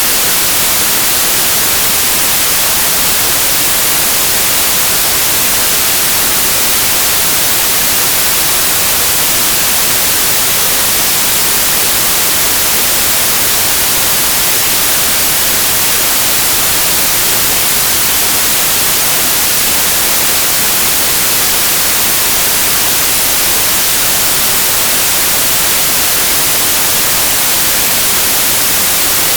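Steady, loud white noise, an even hiss with no changes.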